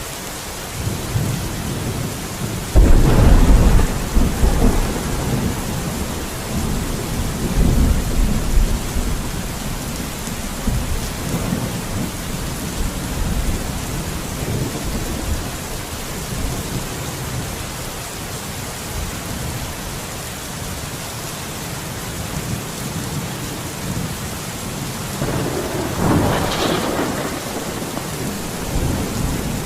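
Steady rainfall with thunder: a sudden loud clap about three seconds in that rolls on as a low rumble, a further rumble a few seconds later, and another crack of thunder near the end.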